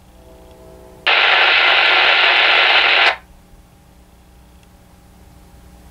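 Baofeng UV-5R5 handheld radio on a railroad channel, opening up with a burst of static and no voice. The hiss starts sharply about a second in, lasts about two seconds, then cuts off. Another burst begins at the very end.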